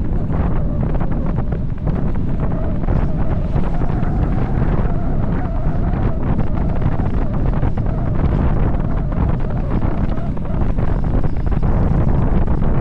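Wind buffeting the camera microphone during a fast bicycle descent, a steady heavy rumble. A faint wavering hum comes and goes in the middle.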